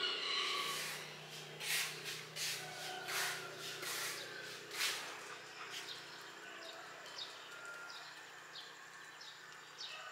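Outdoor ambience of birds chirping. A few louder, harsher calls come in the first half, then a run of short, high, falling chirps, over a faint steady hum.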